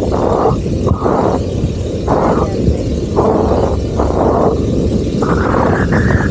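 Heavy wind noise rumbling on the camera microphone during a low parasail tow over the sea, swelling and easing about once a second.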